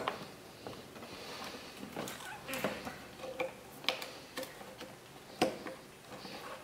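Irregular light plastic clicks and knocks from a twist-lock bulb socket being turned into the back of a 1997 Buick LeSabre headlight assembly and the housing being handled.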